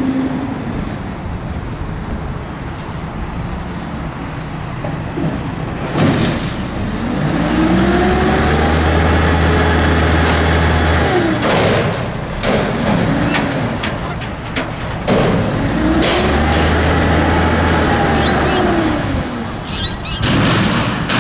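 Mack MR front-loader garbage truck's diesel engine revving up twice, climbing, holding and falling each time, to drive the McNeilus body's hydraulics as the forks raise a dumpster over the cab and lower it again. Sharp metal bangs and clangs of the steel dumpster come between and around the revs, in a cluster between the two runs and again near the end.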